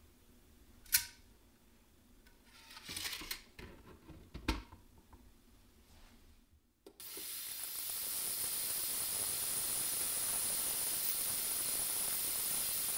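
A sharp click about a second in, then clinks and rattles as watch case and bracelet parts in a wire basket go into an ultrasonic cleaner's tank. About seven seconds in the ultrasonic cleaner switches on with a steady high-pitched hiss from the liquid.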